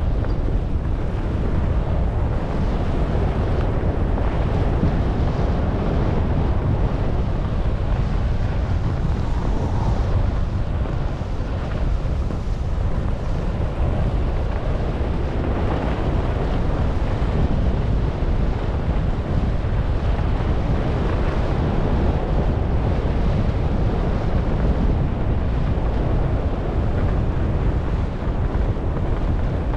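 Wind buffeting the camera's microphone at skiing speed, a steady rumble over the hiss and scrape of skis running on tracked, packed snow.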